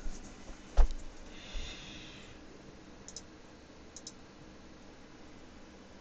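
A single sharp thump about a second in, a short hiss, then two faint pairs of clicks a second apart, over quiet room tone.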